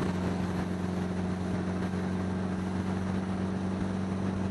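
1975 Honda Gold Wing's flat-four engine and exhaust running steadily while riding, a low drone, with wind noise on the helmet microphone.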